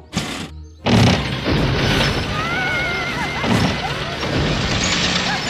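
Cartoon sound effects of a toy spinning top launched with its ripcord: a short burst right at the start, a loud crash about a second in, then a busy mechanical spinning clatter with wobbling whistle-like tones over background music.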